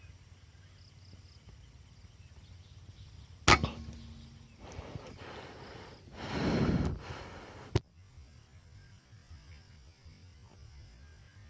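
A single sharp shot from a PCP air rifle about three and a half seconds in, followed a couple of seconds later by a rise of rustling noise and a short click near the end.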